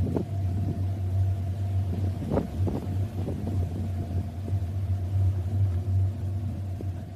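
Steady low rumble of a running motor, with a faint steady whine above it and a few brief rattling noises, one sharper one about two and a half seconds in.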